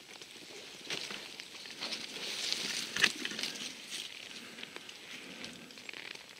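Footsteps through forest undergrowth, with leafy branches brushing past and twigs and dry leaves crackling underfoot; a single sharp crack about three seconds in is the loudest sound.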